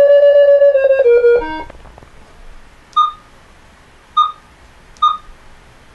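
Tasman V1000 variometer's audio tone sounding for a climb, a pitched tone that rises slightly then falls and stops about a second and a half in. Then three short electronic beeps about a second apart as the unit's buttons are pressed.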